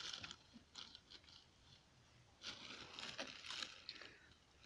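Faint crinkling and crunching of puffed corn sticks being handled and pushed into the mouth. There is a short burst at the start, a few small clicks, and a longer patch from about two and a half seconds in.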